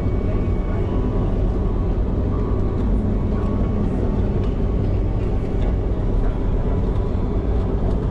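Steady low rumble of vehicle noise, with a few faint steady tones and light ticks over it.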